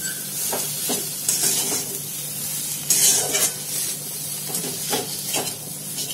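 Spiced potato filling sizzling in a kadhai as a spatula stirs it, scraping against the pan in repeated irregular strokes over a steady frying hiss.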